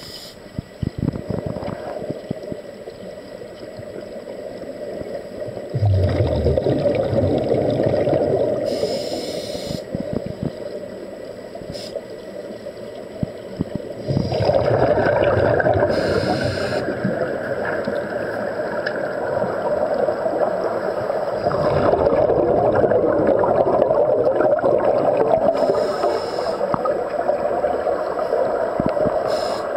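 Steady muffled underwater bubbling and rushing air from air-fed sea-walk diving helmets venting bubbles. It grows louder about six seconds in and again about fourteen seconds in.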